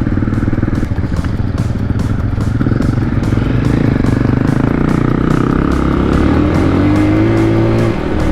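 Single-cylinder engine of a CSC TT250 dual-sport motorcycle running while riding, with a short dip in the engine note near the end.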